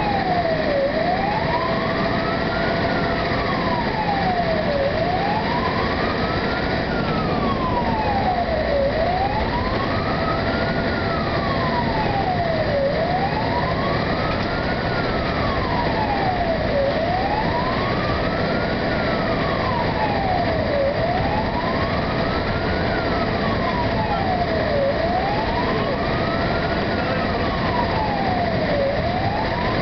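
Fire engine's siren wailing on an emergency run, rising and falling slowly about every four seconds, heard from inside the cab over the steady engine and road noise.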